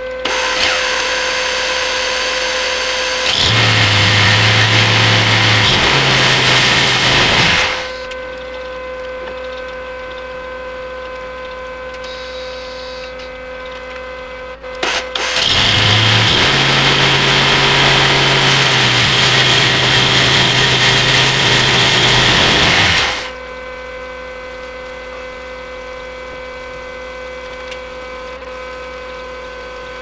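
Homemade band sawmill starting up abruptly and running with a steady hum. Twice it grows much louder and rougher for several seconds, with a deeper hum that steps in pitch, as the saw works through the walnut burl.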